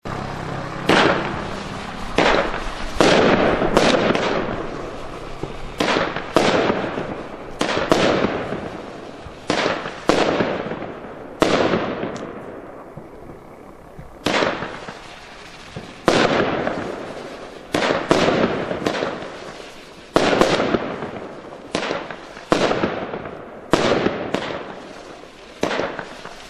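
A 30-shot consumer firework cake with 25 mm tubes firing its shots one after another. Each shot is a sharp report with a decaying tail, the shots coming irregularly about every half second to second and a half, with a pause of about two seconds near the middle.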